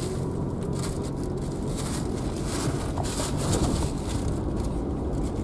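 Steady low rumble of engine and road noise inside a car's cabin while riding.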